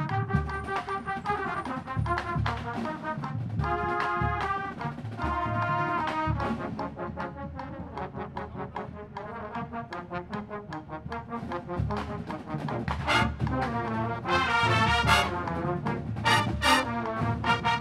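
Drum corps hornline of trumpets, mellophones and low brass playing together in sustained chords. It eases back through the middle and builds louder in the last few seconds.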